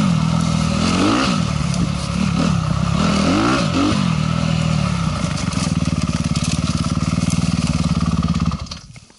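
Dirt bike engine being ridden slowly, revving up and down in short blips, then settling to a steady low run and cutting off near the end.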